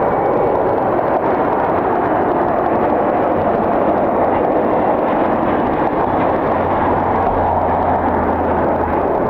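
Steady jet engine noise from a Cessna Citation business jet, with a low steady hum joining about six and a half seconds in.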